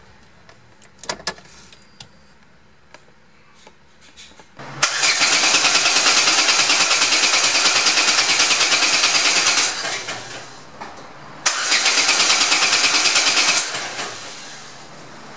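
Starter motor cranking a Renault F7R 2.0 16-valve engine twice, about five seconds and then about two seconds, with an even pulsing beat and no firing, because the ignition coil connector is unplugged to prime the pump. A few light clicks come before the first crank.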